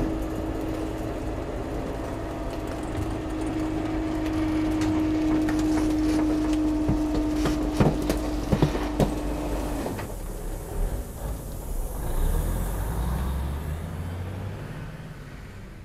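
Garbage truck running with a steady whine over its engine, with a few sharp knocks and clanks about eight to nine seconds in. About ten seconds in the whine stops, the engine note rises briefly, and the sound then fades.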